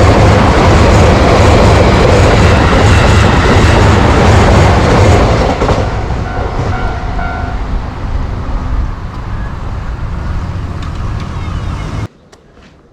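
Keisei train passing through a level crossing: a loud rumble of wheels and running gear for about five seconds, then fading as the train draws away, until the sound cuts off suddenly near the end.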